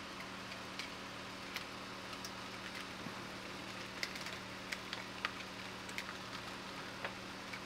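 Small sharp plastic clicks and snaps, a dozen or so at irregular intervals, as the plastic wiring cover of a Ford EV battery module is pried up and lifted off its clips, over a steady background hum and hiss.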